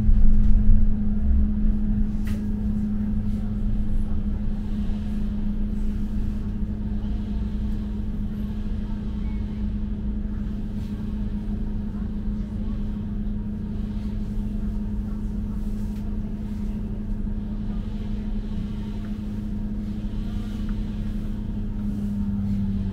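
Riding inside a moving London bus: the steady hum of the bus's drivetrain over low road rumble, loudest in the first couple of seconds and then settling to an even level, with one faint click about two seconds in.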